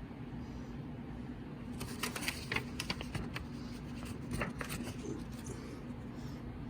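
A quick run of light clicks and rattles from about two to five seconds in as a plastic smoke alarm is handled, over a steady low hum.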